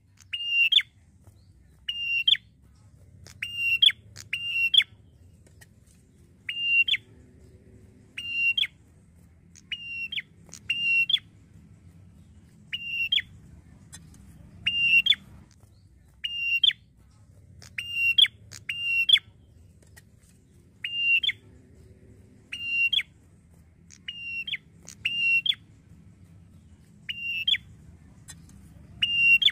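A tailorbird (red-headed 'prenjak') calling over and over: short, loud, high notes, each a steady tone ending in a quick upward flick, often given in pairs, one or two a second.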